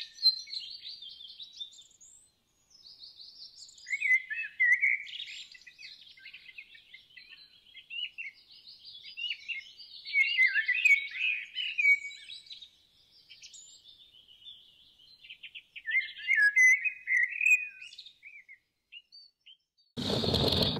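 Birdsong: several birds chirping in bursts of a few seconds with short gaps between, all high-pitched with nothing low underneath. Near the end, music cuts in.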